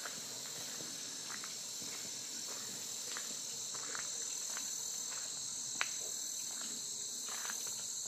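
Insects trilling in a steady, high chorus, with a person's footsteps about every two-thirds of a second and one sharp click a little before six seconds in.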